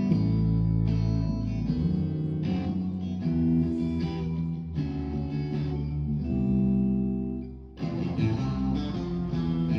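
Guitar-led band music with bass underneath, playing sustained chords; it drops away briefly near the end and then comes back in.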